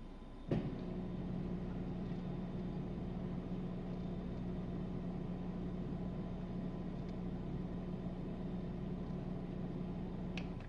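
Whirlpool WDF540PADW0 dishwasher's drain pump, set going by the drain button, starts with a click about half a second in and hums steadily as it pumps the water out. It stops with a click near the end.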